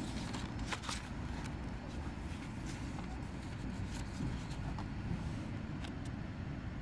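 Pages of a large hardbound photography book being handled and turned: paper rustling with a few sharp flicks, over a steady low rumble in the background.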